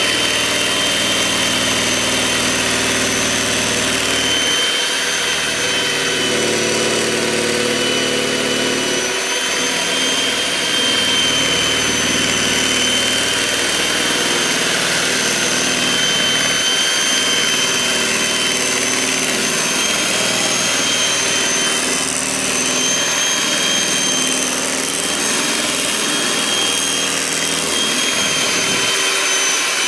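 Electric mixer running steadily, its motor giving a high whine that wavers slightly in pitch as it beats the mixture.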